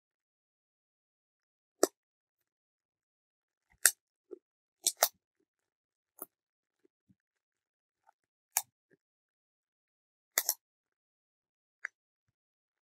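Bubble wrap bubbles squeezed and popped one at a time between the fingers: about ten sharp, separate pops at irregular intervals, a few of them in quick pairs.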